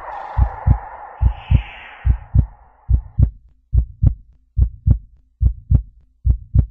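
Heartbeat sound effect: pairs of low thuds repeating a little more often than once a second. A hissy wash lies over them for the first three seconds, then fades out.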